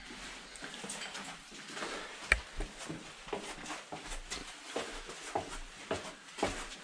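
Footsteps going down a narrow cellar staircase: irregular scuffs and taps of shoes on the steps, with one sharper knock a little over two seconds in.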